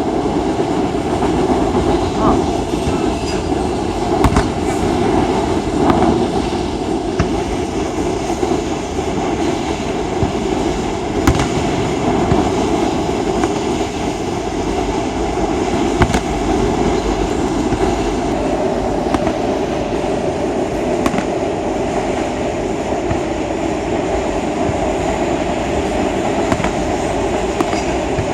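Long freight train passing on the rail line overhead: a steady, loud din of wheels on rails, with scattered sharp cracks.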